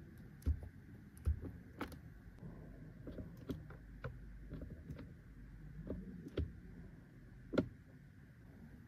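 Scattered small plastic clicks of a car's power side-mirror control knob being turned and pressed on the door panel, over a faint steady whine, with the sharpest click near the end.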